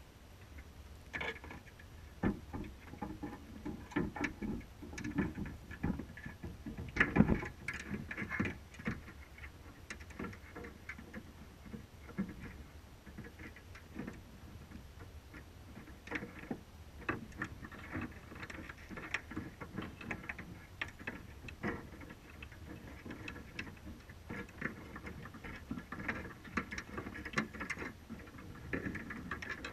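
Crabs moving on a wire crab trap and its bait cage underwater, heard through a GoPro's waterproof housing: irregular clicks, taps and scrapes, with a louder cluster of knocks about seven seconds in.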